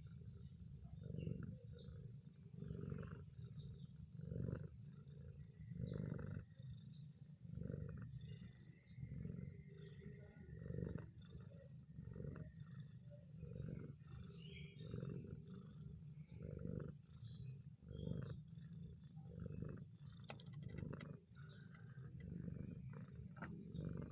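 Domestic cat purring while being massaged: a low rumble that swells and fades with each breath, about every second and a half.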